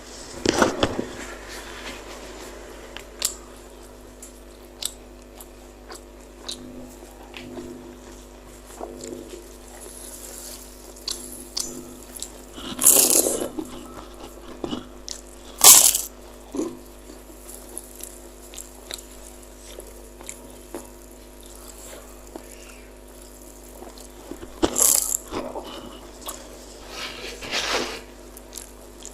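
Close-miked eating: chewing and biting on spicy Indonesian meatballs (bakso mercon), with scattered mouth clicks and a few louder mouth sounds spread through, over a faint steady hum.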